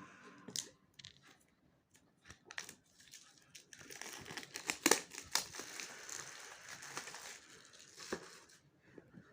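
Packaging being handled at close range: plastic crinkling and rustling, loudest in the middle, with scattered sharp clicks and taps.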